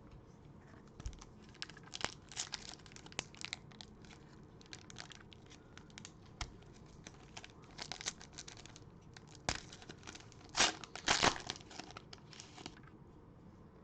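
Cellophane wrapper of a trading-card cello pack being torn open and crinkled, in many short, uneven crackles with a few louder bursts in the second half.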